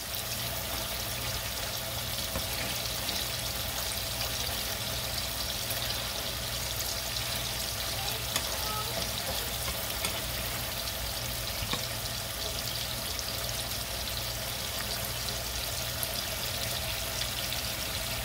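Ackee and saltfish simmering in a frying pan: a steady sizzling, bubbling hiss with a few faint crackles, over a low steady hum.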